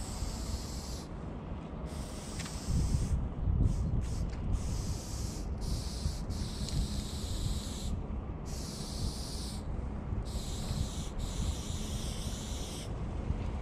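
Aerosol spray paint can hissing as a line is sprayed onto a wall, in a run of short sprays of about one to two seconds each, broken by brief pauses as the nozzle is released and pressed again.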